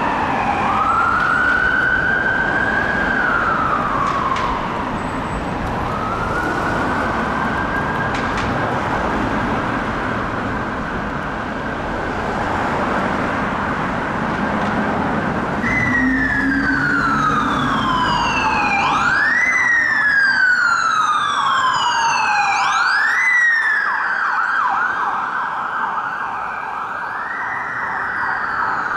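Emergency-vehicle siren wailing, rising and falling slowly, then holding a steadier high tone, from a London Ambulance Service HART Mercedes Sprinter. About fifteen seconds in, several police sirens from a convoy join. Their overlapping wails rise sharply and fall slowly, with a faster yelp among them, over the sound of road traffic.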